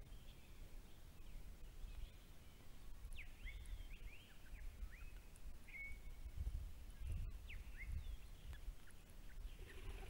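Eastern Rosellas calling: a run of short whistled notes, each sliding up or down in pitch, in quick succession from about three seconds in until near the end. A low wind rumble on the microphone runs underneath.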